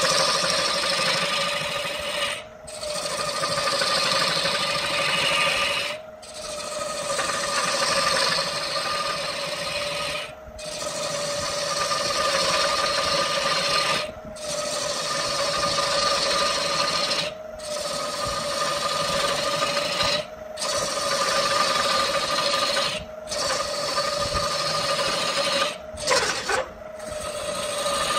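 A wood lathe running, with a steady motor hum under a rough scraping hiss as a tool works the spinning wood. The sound is broken by brief dropouts about every three to four seconds.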